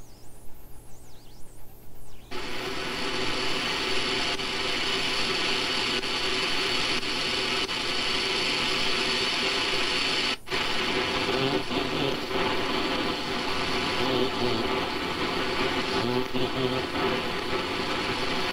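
Shortwave receiver audio from an SDRplay RSPdx scanning AM broadcast stations around 7.4 MHz. It is quieter for about the first two seconds, then gives way to loud, dense static with steady whistling tones running through it. It cuts out briefly about ten seconds in.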